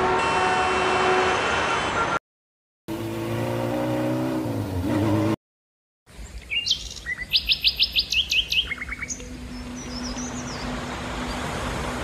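Birds chirping: a quick run of high, repeated chirps and short rising calls about halfway in, over a steady background hum. Before that, two short clips of other pitched sound, each cut off abruptly to silence.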